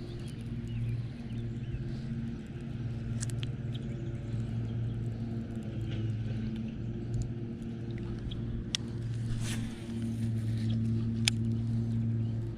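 A steady low motor hum, with a few sharp clicks.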